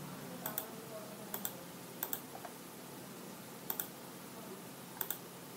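Clicks from working a computer's mouse and keys, mostly in quick pairs, about five or six of them at uneven spacing.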